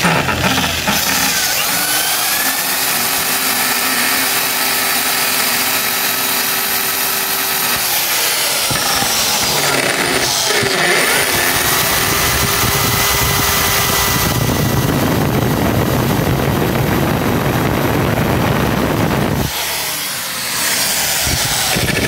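Hand-held electric drill with a 4 mm bit drilling into the metal staking point of a steering rack's inner tie-rod joint, running continuously with its pitch shifting as it bites and easing off briefly near the end. This drills out the stake lock so the joint can be unscrewed without stripping its thread.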